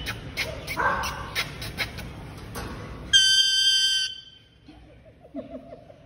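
Large green parakeet clicking and chattering, then about three seconds in one loud, steady, high whistle held for about a second. Faint short notes follow.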